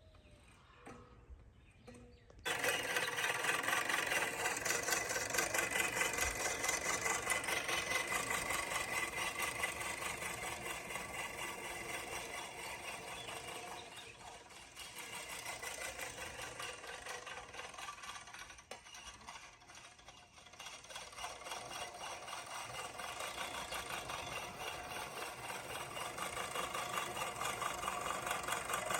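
Sun Joe electric lawn mower switching on about two and a half seconds in, then running steadily with a high whine as it cuts grass, briefly easing off twice.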